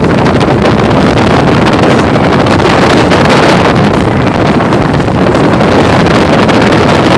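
Loud, steady wind buffeting the microphone aboard a moving motorboat, mixed with the rush of the boat underway.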